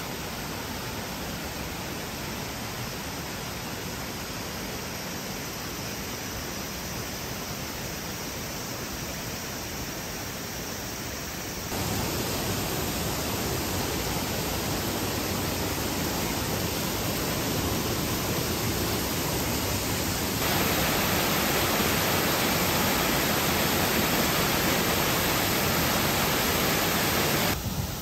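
Steady rush of mountain stream water, with no pitch or rhythm, jumping abruptly louder about twelve seconds in and again about twenty seconds in.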